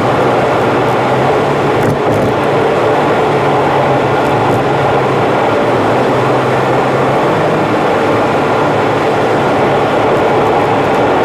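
Car driving along an expressway: steady road noise from the tyres and engine, sped up about three times, which raises its pitch.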